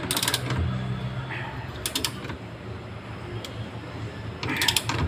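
Socket ratchet wrench clicking on the shaft nut of a washing machine's inverter motor rotor. It comes in three short bursts of rapid clicks: at the start, about two seconds in, and near the end.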